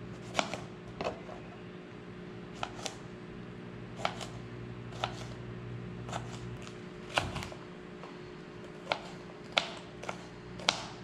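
Kitchen knife cutting tomato, then green pepper, on a plastic cutting board: about a dozen irregular sharp taps of the blade hitting the board, over a low steady hum whose deepest part fades a little over halfway in.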